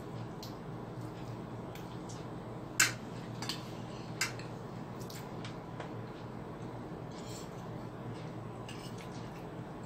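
Fork and spoon clinking and scraping on a plate while eating, with two sharp clinks about three and four seconds in and a few fainter ones, over a steady low background hum.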